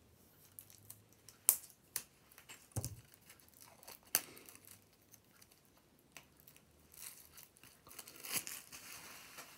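Plastic shrink-wrap being torn and peeled off a deck of cards: scattered sharp crackles and snaps in the first half, then a longer stretch of crinkling near the end.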